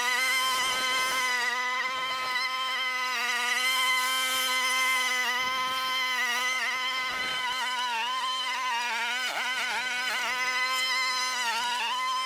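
Gas lawn mower engine running steadily while mowing, its even drone wavering slightly in pitch in the second half as the load changes.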